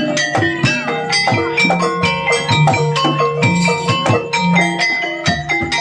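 Javanese gamelan music of the kind that accompanies a kuda kepang dance: metal-keyed percussion struck in a quick, steady run of ringing notes over drum strokes.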